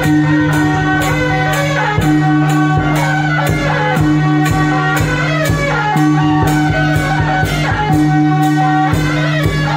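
Temple procession band playing: drum and cymbal or gong strokes keep a steady beat about twice a second under a melody line and a sustained low note.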